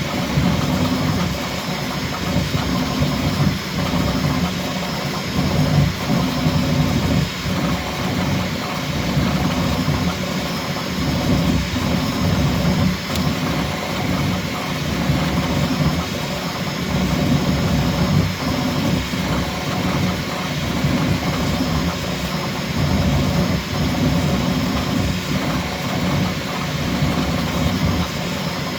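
Bambu Lab X1C 3D printer printing at its top speed setting: stepper motors driving the print head through rapid, jerky moves, making a continuous mechanical whirring and buzzing whose level flickers constantly.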